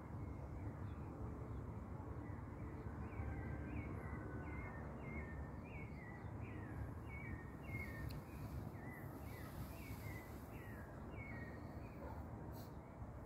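A calling animal gives a long run of short falling chirps, about two a second, over a steady low outdoor rumble. The chirps stop about a second and a half before the end, and brief hissy bursts come twice in the second half.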